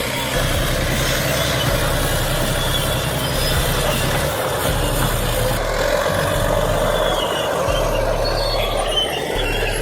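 Heavy diesel machinery running steadily, its engine drone continuous with noise of the work over it.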